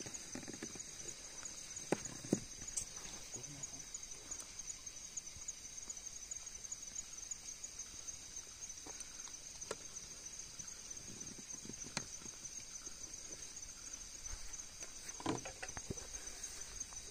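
Steady high-pitched insect chorus that never lets up, with a few scattered faint clicks and short knocks, the sharpest about two seconds in and a small cluster near the end.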